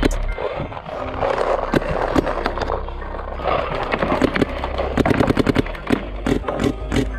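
Paintball markers firing in rapid strings of sharp pops, densest about five seconds in, over a steady low hum.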